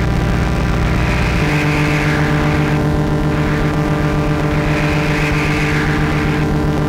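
Modular synthesizer drone: a loud, dense stack of sustained tones with a hissing upper layer that swells and fades about every two seconds. About a second and a half in, the low rumble gives way to a steadier, higher pitched hum.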